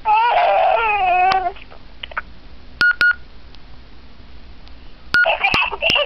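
A toddler's high-pitched giggle played back through a flip phone's small speaker, falling in pitch and stopping about a second and a half in. Two short keypad beeps follow near the middle, then another beep and the child's voice again near the end as the next recording starts.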